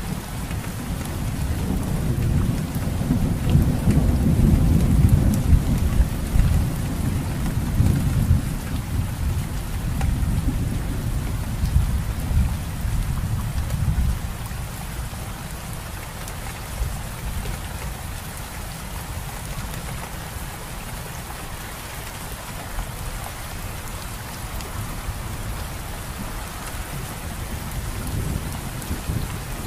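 Steady rain, with a long low rumble of thunder that swells over the first few seconds and fades away about halfway through.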